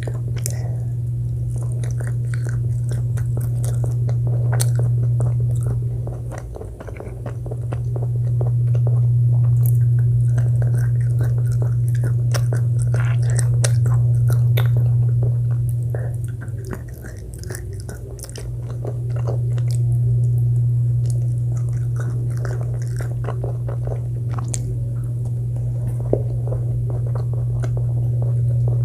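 Close-miked eating: a person biting and chewing food, with many small crunchy clicks. A steady low hum runs underneath and dips briefly twice.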